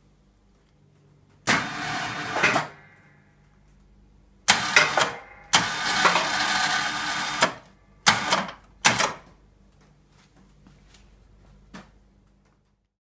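ATV electric winch running in five short bursts, the longest about two seconds, spooling in its strap to raise the plow blade.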